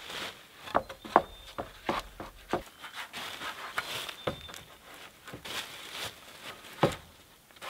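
Wooden poles knocking and scraping against each other as they are stood upright against a pole shelter frame, with dry leaves rustling underfoot. A quick run of knocks comes in the first few seconds, and a single sharper knock near the end.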